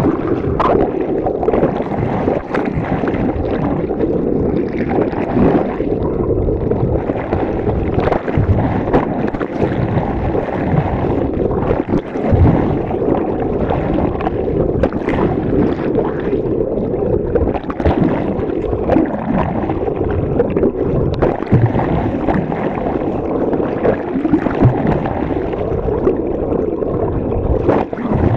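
Steady underwater rush of water and boat noise picked up by a camera held below the surface, with scattered short clicks.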